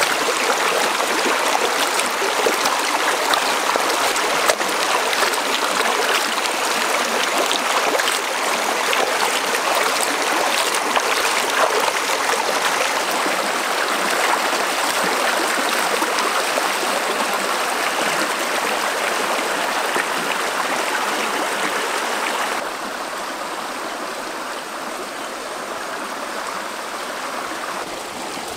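Shallow stream rushing over rocks, with splashing as a skinned crocodile carcass is rubbed and rinsed in the current. The flow drops to a softer level about three-quarters of the way through.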